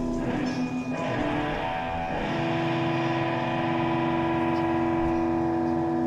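Amplified electric guitars sounded by zebra finches landing and moving on the strings: overlapping ringing, droning notes with some scratchy string noise early on, and a fresh cluster of held tones coming in about two seconds in and sustaining.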